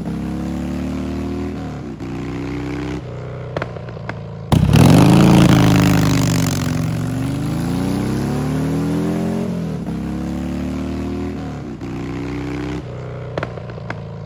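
Straight-piped Harley-Davidson Ironhead Sportster V-twin accelerating through the gears, its pitch climbing and then dropping at each shift. About four and a half seconds in it turns suddenly much louder, the note sagging and then rising again.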